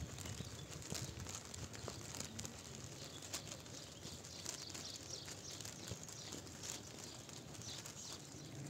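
Faint outdoor ambience with scattered light clicks, ticks and rustles.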